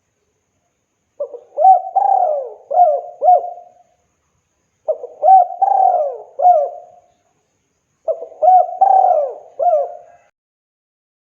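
Spotted dove (tekukur) cooing: three phrases of several low, rolling coo notes, each phrase about two and a half seconds long, repeated every three to four seconds.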